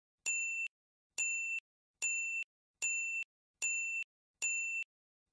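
A repeated electronic ding, a clean high chime sounding a little more than once a second, about seven times, each tone cutting off sharply with dead silence between: a sound effect laid over the footage in editing.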